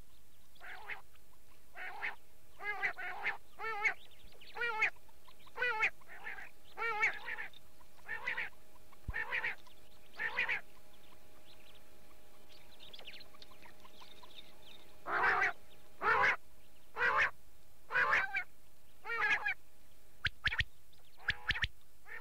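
Recorded quail calls: short harsh warbling calls repeated in quick series, breaking off for a few seconds past the middle and then coming back louder. A faint steady hum runs underneath.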